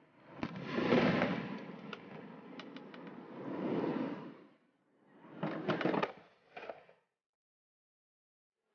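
Aerial fireworks shells bursting: a boom about a second in and another near four seconds, each trailing off with crackles, then a further run of bursts and crackles. The sound cuts off to dead silence near the end.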